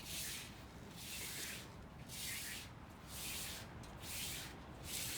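Hand brush sweeping spilled birdseed into a dustpan: six brisk brushing strokes, about one a second.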